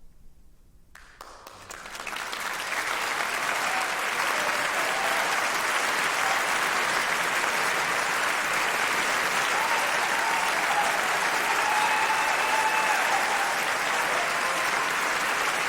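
The last piano chord fades out, and about a second in a concert-hall audience bursts into applause. The clapping swells within a second and then stays steady and full.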